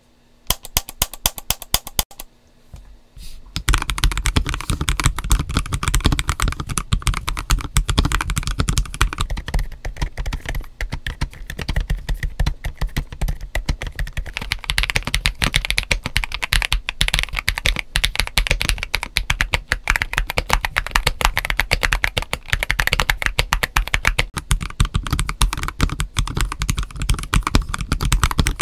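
Typing on a GAS67 mechanical keyboard with PBT keycaps. A few separate key clicks come in the first two seconds, then fast continuous typing runs from about four seconds in.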